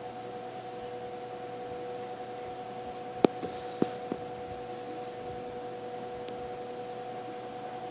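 1958 General Electric twin window fan running on low, its unit-bearing motor giving a steady two-tone whistling from the windings, a sound typical of these motors. Four sharp clicks come about three to four seconds in.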